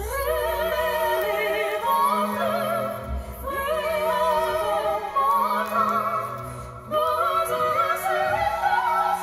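Background music: a classical, operatic-style singing voice holding long notes with wide vibrato over a low sustained accompaniment.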